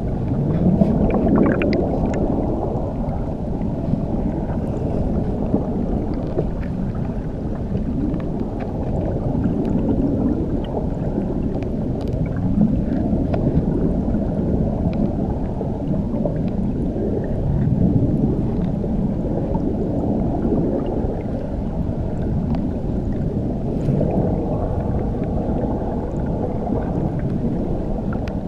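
Muffled underwater sound of churning water beneath a waterfall: a dense low rumble that swells and eases every few seconds, with a few faint clicks and pops.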